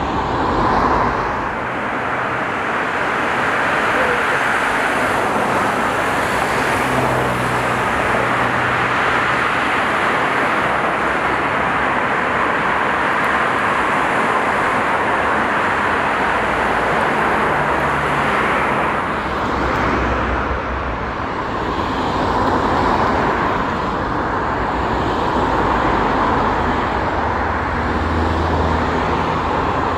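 Steady noise of city road traffic, cars passing by, rising and falling gently in level.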